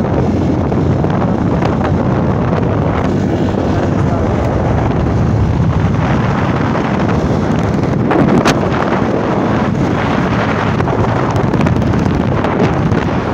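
Wind rushing over the microphone of a moving motorcycle, with the motorcycle's engine running underneath. A brief knock about eight and a half seconds in.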